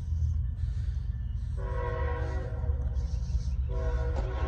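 CSX diesel locomotive's multi-chime air horn sounding for the grade crossing: one blast of about a second and a half, then a second blast starting near the end, over a steady low rumble.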